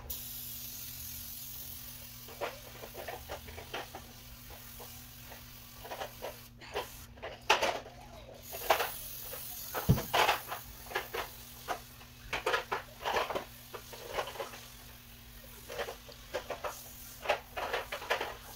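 Aerosol degreaser can spraying onto a stovetop: a steady hiss for the first two seconds or so, then many short spurts of spray.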